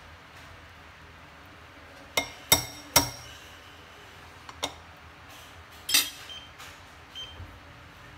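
Wooden chopsticks knocking and clinking against glass and cookware. There are three sharp clinks in quick succession about two to three seconds in, a lighter one a little later, and a short rattling clatter about six seconds in.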